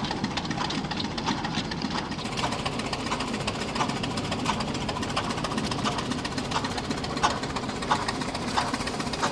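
Small Murray Iron Works 4-horsepower stationary steam engine with a vertical boiler, running steadily under belt load. Light, regular knocks come about twice a second over a steady mechanical clatter.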